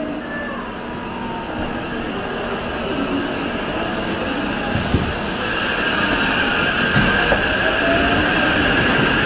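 JR East E353 series electric train moving off, its Mitsubishi IGBT-VVVF inverter and traction motors whining and rising in pitch as it gathers speed, growing louder. A few short knocks from the wheels come through.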